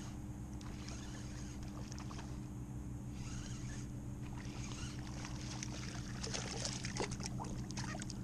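Small hooked trout splashing at the surface beside a kayak as it is reeled in. The splashes come thick over the last few seconds, over a steady low hum.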